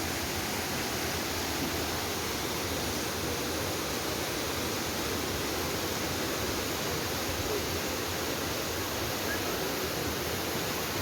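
Waterfall: a steady, unbroken rush of water pouring down forcefully.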